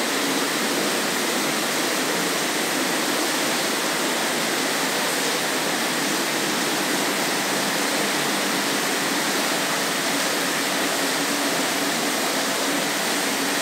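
Heavy rain outside, a steady, even rush of noise with no break or change.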